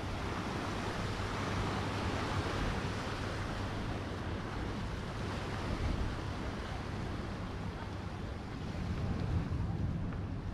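Sea surf washing on the shore, a steady rushing that swells and eases, with wind buffeting the microphone and a low steady hum underneath.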